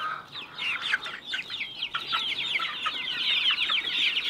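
A flock of hens and young chickens peeping and clucking continuously while they feed. It is a dense chorus of short, high, falling peeps.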